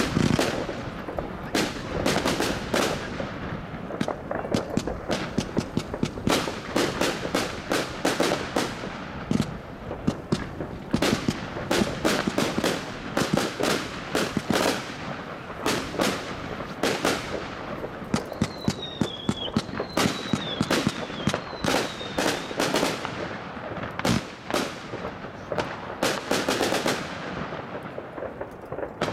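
Consumer firework batteries (cakes) firing a dense, overlapping barrage of launches and bursting reports, many bangs a second without a break. About two-thirds of the way through, a few short falling whistles sound over the bangs.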